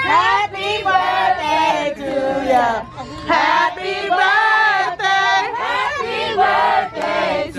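A group of voices, women and children among them, singing together to the birthday girl.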